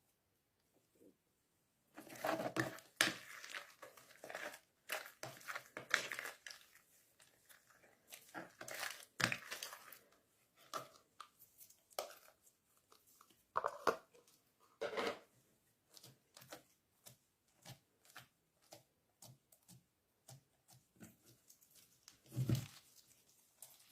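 Slime being squished and pulled by hand, making irregular sticky crackles and pops. It is nearly quiet for the first two seconds, then comes in clusters, with the loudest squelch near the end.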